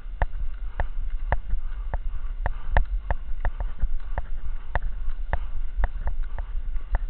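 Cross-country skiing: sharp clicks about two a second from the ski poles and skis striking the packed snow in stride, over a steady low rumble of the moving camera.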